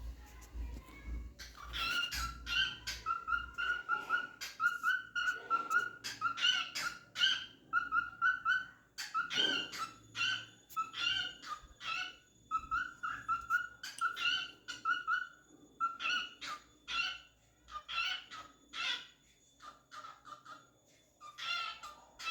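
A cockatiel singing: a long run of short, repeated whistled chirps, several a second, which thin out in the last few seconds.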